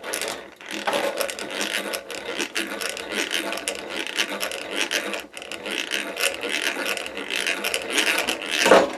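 Hand-cranked eggbeater drill turning steadily, its gears whirring and clicking as the bit bores out a rivet holding a dryer drum glide, with a brief pause about five seconds in.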